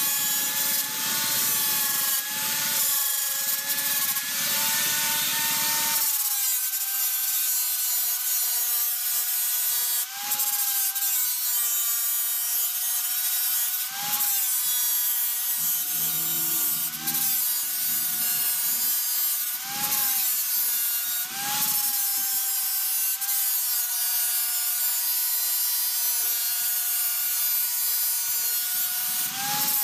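Small handheld electric power tool grinding on a stainless steel exhaust pipe: a steady motor whine over a hiss of grinding. The whine drops a little about six seconds in and rises briefly every few seconds as the load comes off the tool.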